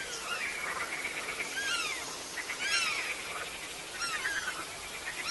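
Evening forest chorus: many birds calling in repeated short, falling chirps over a steady hiss. Bats are flying out at the same time, but their calls cannot be picked out among the birds at normal speed.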